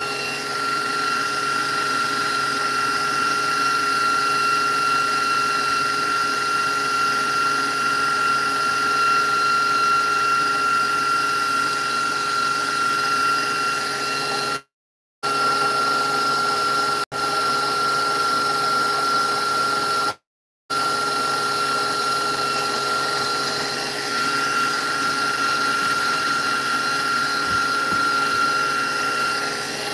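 Electric mixer motor running steadily with a high whine as its beaters whip cream toward butter. The sound cuts out briefly twice, about halfway through and again about two-thirds of the way in.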